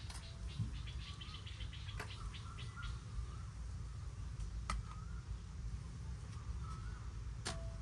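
Four sharp clinks of glass beer bottles set down into stainless steel bowls, two to three seconds apart; the last rings briefly. Birds chirp in the background over a steady low rumble.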